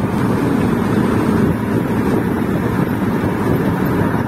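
Steady rumble of a vehicle driving along a highway, engine and road noise heard from inside the cabin, with some wind on the microphone.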